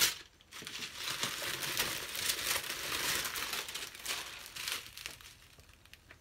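Crinkly plastic packaging being unwrapped and handled by hand, rustling in irregular bursts, fading out near the end.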